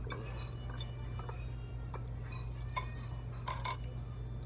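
Light clinks and taps of chopsticks and tableware against dishes while eating, a few scattered strikes over a steady low hum.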